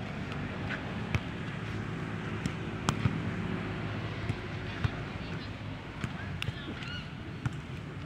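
Outdoor walking ambience: a steady wash of background noise with a faint low hum, scattered sharp clicks and knocks, and a few short high chirps about six and a half seconds in.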